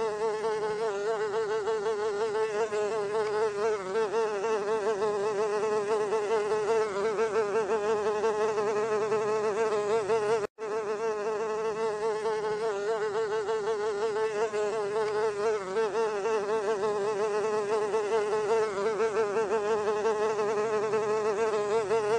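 Housefly buzzing in continuous flight, a steady buzz whose pitch wavers slightly, with a momentary break about halfway through.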